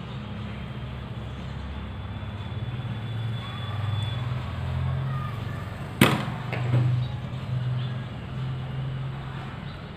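Domestic straight-stitch sewing machine running as it stitches a seam through layered blouse fabric, a steady low hum that swells and eases with the sewing speed, with one sharp click about six seconds in.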